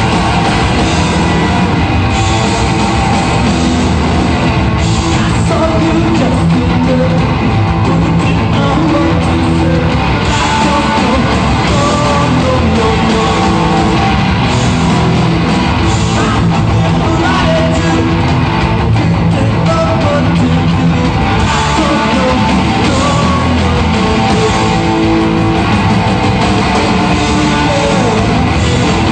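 A rock band playing a song live at full volume: electric guitar and drums, with a singer's vocals.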